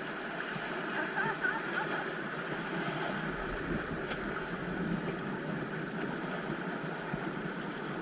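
Steady noise of a boat on the water: its motor running, with water and wind noise on the microphone.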